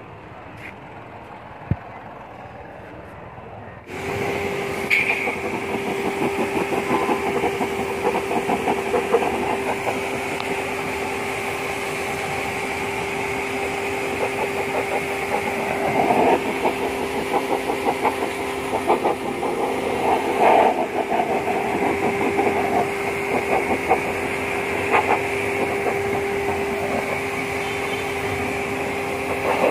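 High-pressure washer running with a steady motor-pump hum and the hiss of its spray blasting water onto a car's AC condenser fins, starting abruptly about four seconds in. The spray noise surges irregularly as the jet moves over the fins.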